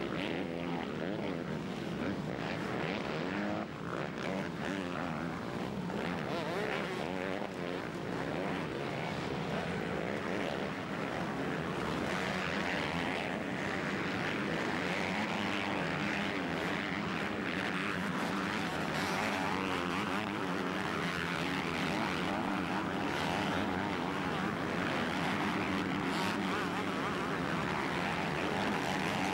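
A pack of motocross bikes racing, their engines revving up and down in pitch as riders accelerate through the corners and over the jumps, blending into one continuous drone.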